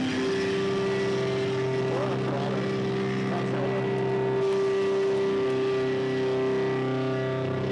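Live rock band's distorted electric guitars holding a sustained droning chord. A long, steady higher note comes in at the start and is held until near the end, with a few gliding, wavering notes over it a couple of seconds in.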